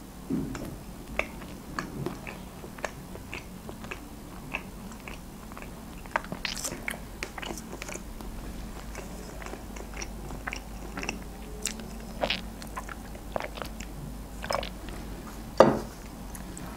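Close-miked chewing of shawarma: soft wet mouth clicks and smacks, several a second, with a louder sound near the end.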